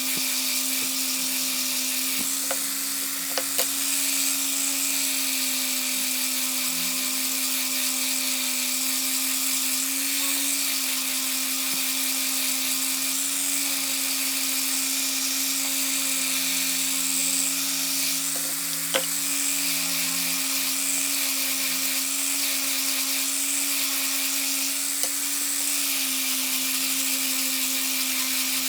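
Small high-speed electric power tool running steadily with an even whine, with a few brief sharp clicks.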